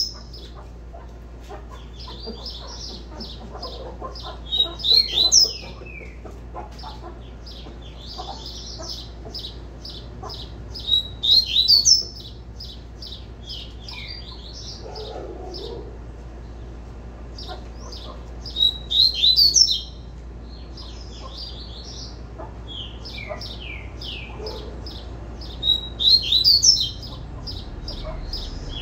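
Caged coleiro (double-collared seedeater) singing its tui-tui song: a running series of quick, high chirping notes, with a louder burst of notes about every seven seconds.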